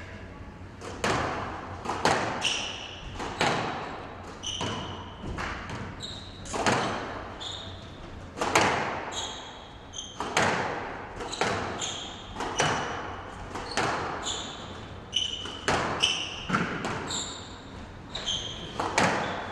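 Squash rally: the ball cracking off rackets and the court walls and floor at about one hit a second, each hit ringing in the enclosed court, with short high squeaks of court shoes on the floor between hits.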